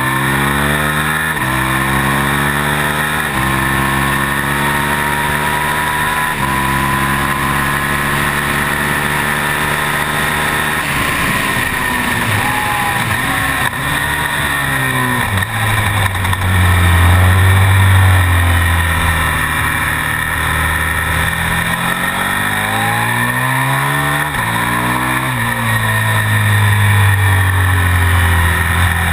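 A KTM Super Duke's V-twin engine at race pace, pulling hard through the gears with an upshift every couple of seconds, then shutting off and changing down under braking about eleven seconds in. It picks up again and runs through more upshifts near the end, with wind rushing over the microphone throughout.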